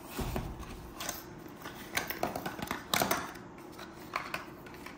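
Cardboard packaging of a precision screwdriver kit being handled: irregular rustling and scraping of a paper sleeve and box, with a few sharp clicks, loudest about three seconds in.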